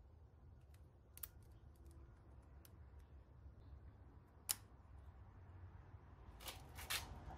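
Faint low hum with a few sharp metallic clicks and taps from a small metal tool handled against a billet 6061 aluminium block and in its bored holes; the loudest click is about four and a half seconds in, with a pair near the end.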